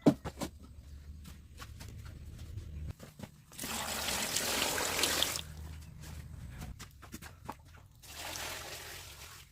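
Water pouring in two spells, a longer one about four seconds in and a shorter one near the end, after a few sharp knocks at the start.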